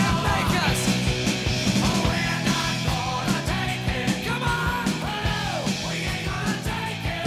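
Rock music with a steady drum beat and a shouted, sung vocal.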